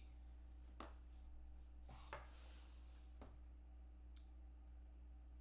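Near silence: a steady low hum of room tone, with a few faint, short clicks and rustles.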